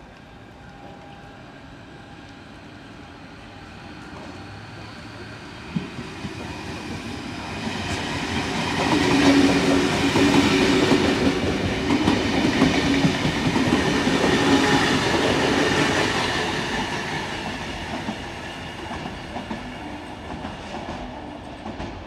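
Sydney Trains double-deck electric suburban train passing along the platform. The wheels clatter on the rails over a low steady hum. The sound builds as it approaches, is loudest for several seconds in the middle as the carriages go by, then fades as it moves away.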